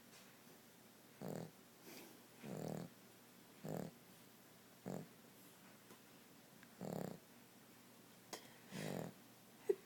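Cavalier King Charles Spaniel snoring in its sleep: short snores about every second, with a pause of about two seconds in the middle. Near the end there is one brief, sharp squeak.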